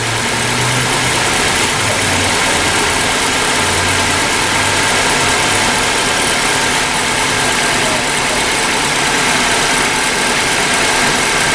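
Honda Civic's engine idling steadily under a constant hiss.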